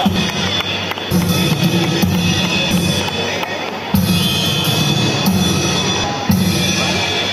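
Loud music with a heavy drum beat.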